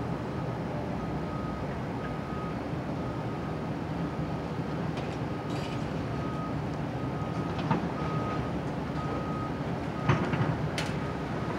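Komatsu hydraulic excavator running steadily while demolishing a building, with a reversing alarm beeping about once a second. Sharp crashes and clatter of breaking debris come about two-thirds of the way through and again near the end.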